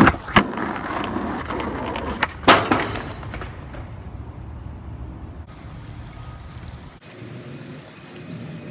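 Skateboard wheels rolling on asphalt close by, then sharp clacks of the board: two just after the start and a louder one about two and a half seconds in. The rest is quieter outdoor background.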